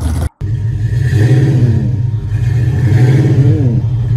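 Classic muscle car V8 running with a choppy, rhythmic idle and a couple of brief revs that rise and fall. A sudden short dropout comes about a third of a second in.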